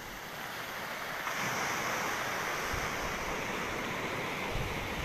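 Rough storm surf washing ashore, a steady rush that swells louder about a second in. Near the end, wind gusts buffet the microphone.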